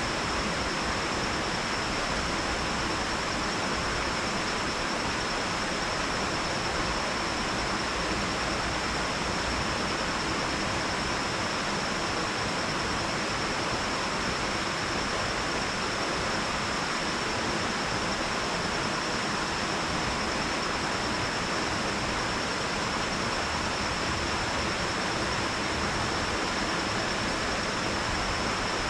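Steady rush of water spilling over a low lake dam into the creek outlet, unchanging throughout. A thin, steady high-pitched tone sits above the rush.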